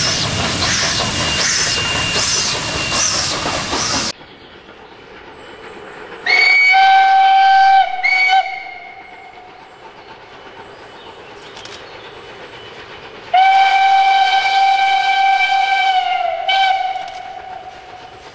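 SNCF 141R steam locomotive running close past, loud and pulsing about twice a second, until a sudden cut about four seconds in. Then a steam locomotive's whistle blows: a blast of about a second and a half and a short one, then a long blast of about three seconds that sags in pitch as it ends, followed by a short toot.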